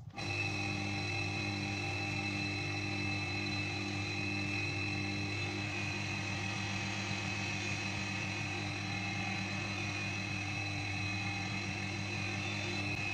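Homemade bench grinder, an electric motor driving an abrasive disc, running steadily with a low hum and a high whine while a steel axe head is ground against the disc. It cuts in suddenly right at the start.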